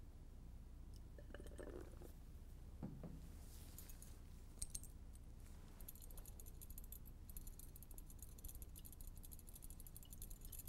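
Faint clinks and light rattling of a glass test tube in a metal wire test-tube holder as it is handled, with a sharper click a little before the middle and a denser run of small jingling ticks in the second half.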